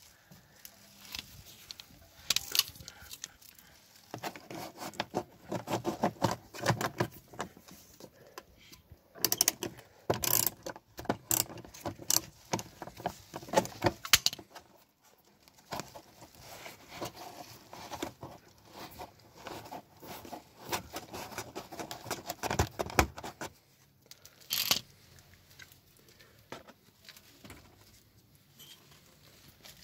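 Irregular clinks, scrapes and rustles of hand work on a car: tools and metal and plastic parts being handled while an ABS wheel speed sensor is changed. The sharpest clicks bunch together in the middle, with brief lulls later on.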